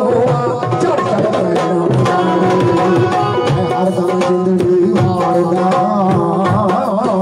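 Live Punjabi folk music: a steady hand-drum beat under a keyboard melody, with a tumbi.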